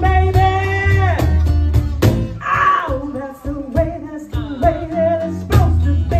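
A woman sings long held notes into a microphone over several strummed acoustic guitars, played live.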